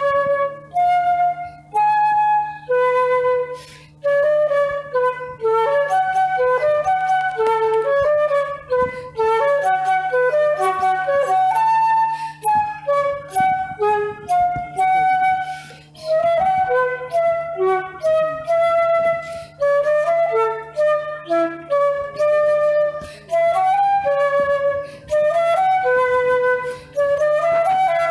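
Background music: a flute playing a flowing melody of short held notes over a steady low drone.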